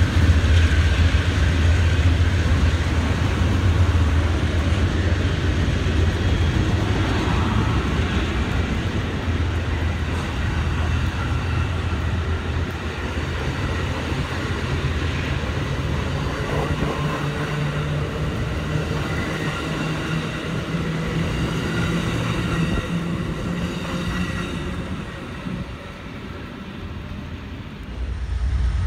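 Amtrak Superliner bilevel passenger cars rolling past, a steady rumble of wheels on rail. It fades a few seconds before the end as the last cars go by.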